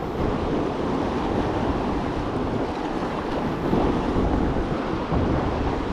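Steady rush of whitewater river current, with wind buffeting the microphone as a low rumble.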